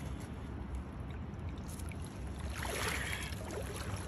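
Steady rush of river water with a low wind rumble on the microphone; about two and a half seconds in, a brief splashing as a trout is lifted out of the water.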